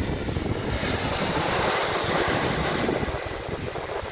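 Airliner flying low overhead on final approach, its engine noise swelling to a peak and then easing off, with a high whine that falls in pitch as it passes.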